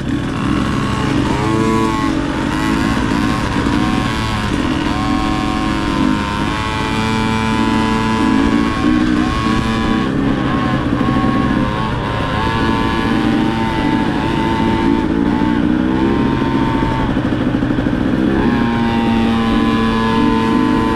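Dirt bike engine running at part throttle, its pitch holding steady for a few seconds at a time and then shifting up or down as the throttle changes.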